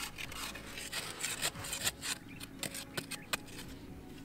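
A hand tool scraping and chipping at hard-packed dry earth, a run of irregular short scrapes and clicks.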